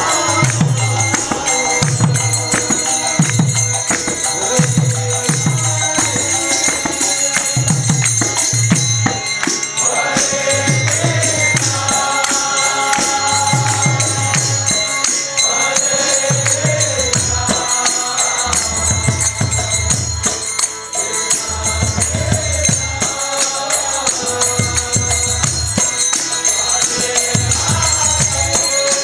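Live kirtan devotional music: voices chanting, which come in most clearly about ten seconds in. Underneath are rhythmic strokes on barrel drums such as the mridanga and a continuous jingling of metal hand percussion.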